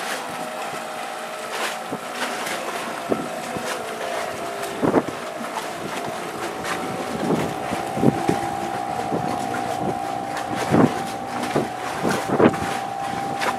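Small 5 hp Suzuki outboard motor running steadily as the inflatable boat motors past, a level whine. Wind buffets the microphone with several sudden thumps.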